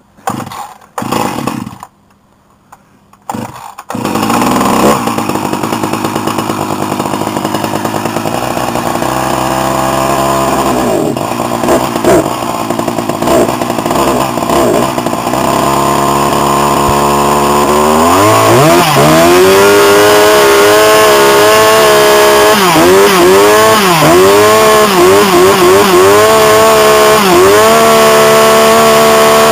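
Husqvarna 346XP two-stroke chainsaw cold-started: a few short bursts, then it catches about four seconds in and runs steadily. After about 18 seconds it is revved up and held at high revs, its pitch dipping and recovering several times, very loud.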